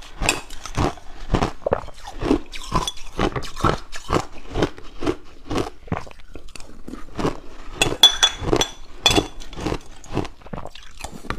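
A person biting and chewing purple ice eaten with yogurt: a steady run of crisp crunches, a few a second.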